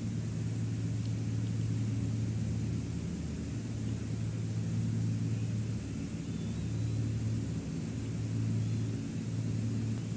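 A steady low hum made of several held tones, swelling and dipping slightly, over a constant hiss.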